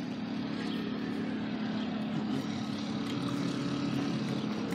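An engine running steadily: a low, even drone with a constant hum.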